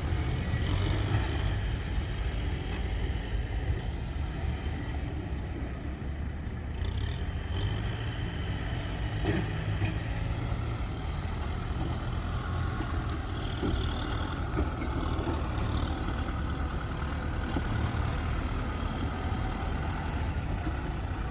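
Diesel engines of a tractor and trucks running steadily, a continuous low rumble that rises and falls only a little.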